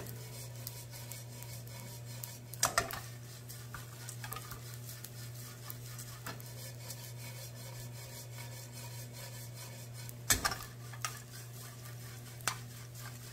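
Dried anchovies stir-frying in a little oil in a frying pan, a wooden spoon scraping and turning them with a light sizzle while they fry hard and crisp. Three sharp knocks of the spoon against the pan, the loudest about ten seconds in.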